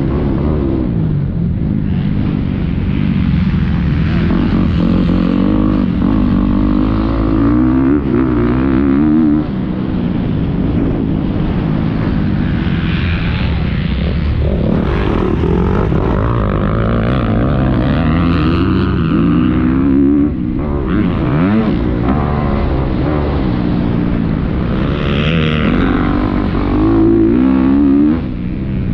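Motocross bike engine heard from the rider's own machine, revving up and falling away again and again as the throttle is opened and shut through corners and straights. The sound dips briefly about nine seconds in, again near twenty seconds and just before the end.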